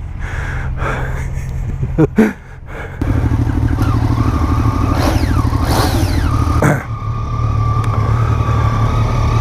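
Motorcycle engines running, a steady low rumble that gets suddenly louder about three seconds in, with a couple of brief falling whines in the middle.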